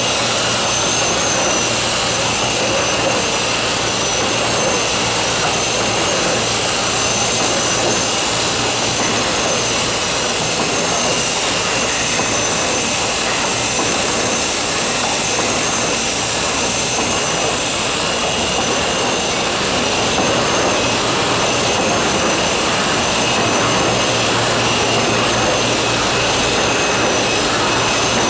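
Sakurai SC 102 DX screen printing press running: a loud, steady mechanical whir with a low hum underneath and a high whine that wavers slowly.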